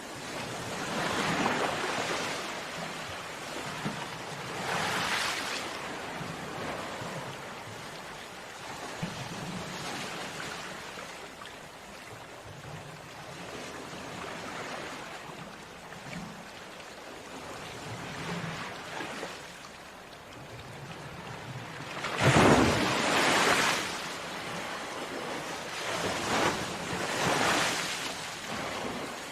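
Ocean waves breaking on a beach and washing back, in a steady hiss of surf; the waves swell and fade every few seconds, the loudest breaking about three-quarters of the way through.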